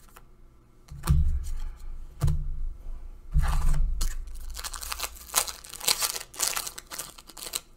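A few dull knocks of cards being handled, then about halfway in the sharp crinkling and tearing of a Zendikar Rising draft booster's foil wrapper being ripped open.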